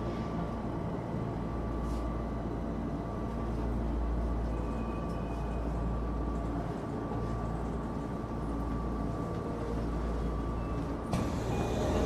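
Tokyo Metro Marunouchi Line subway train running between stations, heard from inside the car: a steady low rumble of wheels and track with a faint steady whine over it. A sharp clack about eleven seconds in, after which it gets louder.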